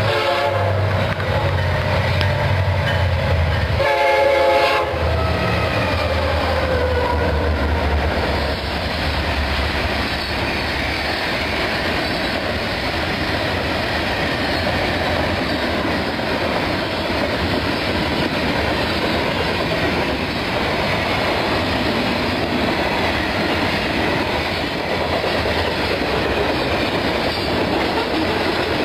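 Florida East Coast Railway freight train passing a grade crossing: the diesel locomotive horn finishes a blast just as it starts and gives another short blast about four seconds in, over the rumble of the passing engines. From about eight seconds on, the long string of freight cars rolls past with steady wheel clatter.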